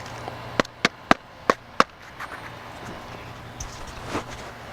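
A handful of sharp knocks and clicks, a quick run of five in the first two seconds and one more near the end, as the drill and the wooden workpiece are handled, over a low steady hum.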